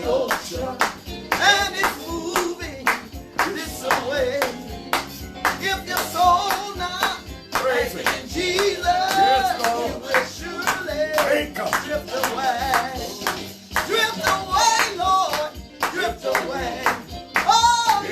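Gospel song with singing voices, instruments and steady hand clapping on the beat.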